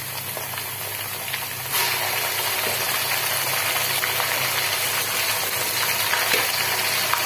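Chopped onions and freshly added ginger-garlic paste sizzling in hot oil in a steel karai, a steady hiss that turns louder about two seconds in. A steady low hum sits beneath, with a few faint clicks of the spatula.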